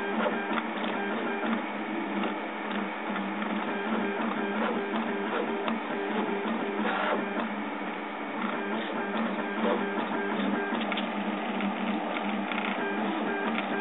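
Prusa Mendel 3D printer at work: its stepper motors whine in short tones that keep changing pitch as the print head moves, over a steady rush from the extruder's cooling fan.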